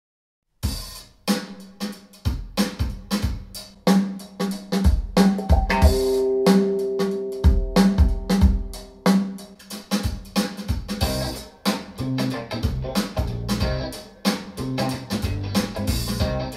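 Music test track played through hi-fi bookshelf loudspeakers and picked up by a stereo recorder in the room: a drum-kit beat of kick, snare and hi-hat starts suddenly about half a second in, and held bass and instrument notes join it midway.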